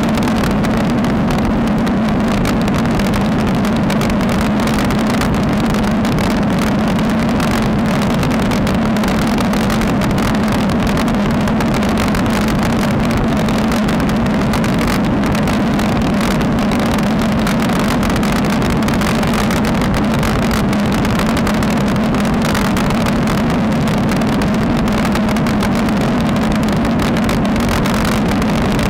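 Steady wind rush and road rumble on a road bike's action camera while riding on tarmac, with a constant low drone underneath.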